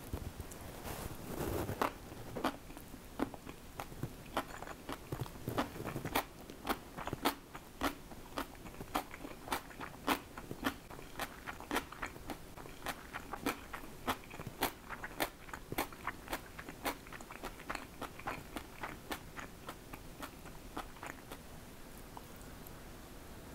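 A person chewing a mouthful of rice and kimchi up close, with crisp crunches about twice a second that die away near the end.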